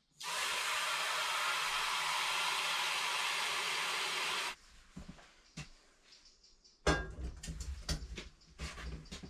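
Water running hard from a kitchen tap for about four seconds, then cut off abruptly. Scattered knocks and clinks of cookware follow, busier near the end.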